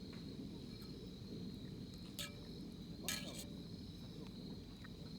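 Crickets trilling steadily in the night, with two short clicks about two and three seconds in.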